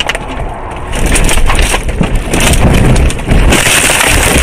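A car ploughing off the road through brush and young trees, heard from inside the car: continuous loud crashing and scraping as branches strike the body and windshield, with many rapid knocks and jolts over rough ground.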